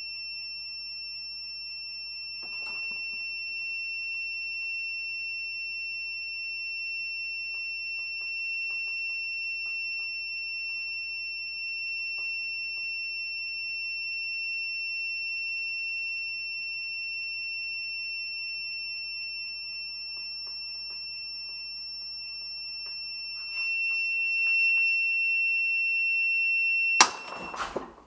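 Digital torque adapter's buzzer sounding one long steady high beep while a breaker bar pulls on a threadlocked muzzle device past the adapter's preset torque. About a second before the end a sharp crack, as the muzzle device breaks loose, and the beep cuts off.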